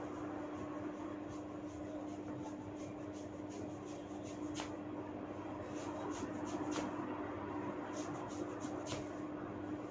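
Hair cracking: small tufts of hair tugged sharply between the fingers, giving scattered sharp little snaps, with a quick run of about five near the end, over a steady hum.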